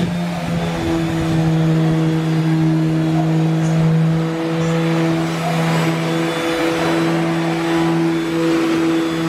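Angle grinder running steadily at speed with a constant whine and a dense hiss, cutting metal.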